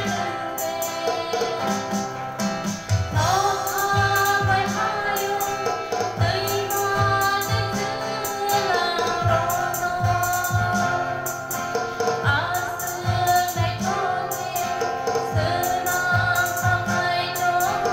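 A girl sings a solo church song, holding and gliding between notes, accompanied by a steadily strummed acoustic guitar.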